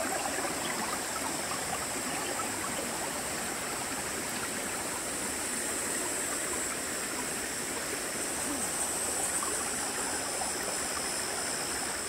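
Flowing stream water: a steady, even rushing with no breaks, with a thin steady high hiss above it.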